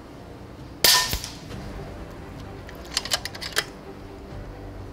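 One sharp report from an Airgun Technology Vulcan 3 5.5 mm (.22) regulated PCP air rifle firing a shot, with a short ringing tail. About two seconds later comes a quick run of mechanical clicks as the rifle's action is cycled to load the next shot.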